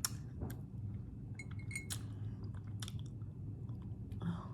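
Close-up chewing of a crunchy hard-shell taco, with a series of sharp crunches, over a low steady hum.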